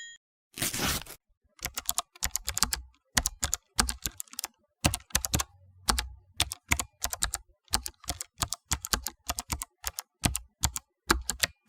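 Manual typewriter keys clacking in quick irregular runs of single strikes. About half a second in there is a brief rasping sweep, following the bell that rang just before, typical of the carriage being returned. The bell starts to ding again at the very end.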